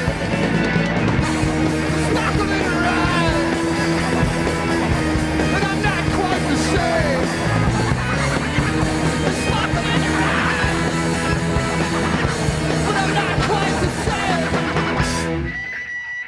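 Live rock band playing: drums, electric guitars, bass, keys and turntables, with short sliding pitches over the top. The music stops abruptly about fifteen seconds in as the song ends.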